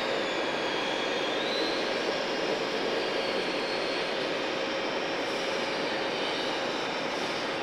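Steady mechanical drone with a constant hum and a faint high whine that shifts slightly in pitch.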